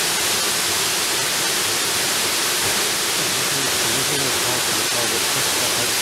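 Steady rush of a tall plunge waterfall, an even hiss of falling water that does not vary.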